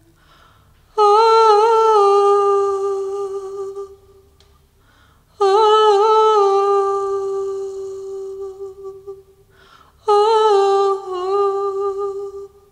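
A woman's voice holding three long wordless notes, unaccompanied, each fading away before the next begins.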